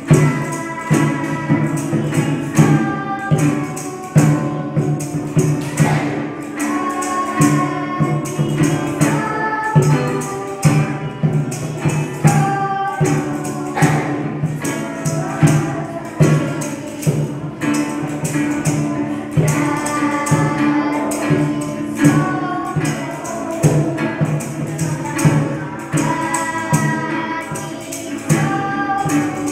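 Children singing a song together to an acoustic guitar and a hand-played conga drum, with a small hand shaker rattling steadily on the beat.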